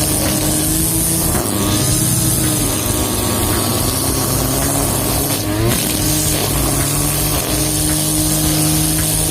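Brush cutter engine running at high speed, its pitch dipping briefly and recovering about a second and a half in and again at about five and a half seconds.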